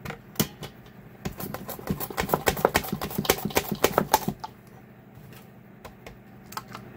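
Cucumber being slid quickly back and forth over a plastic mandoline slicer's blade, a rapid run of clacking strokes for about three seconds. It then stops, with only a few scattered clicks near the end.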